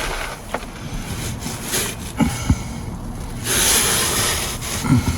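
Scraping along a car's steel brake pipe to test the corrosion, checking whether it is rust or just dirt. A harsher rasping stretch comes about three and a half seconds in, with a few small knocks.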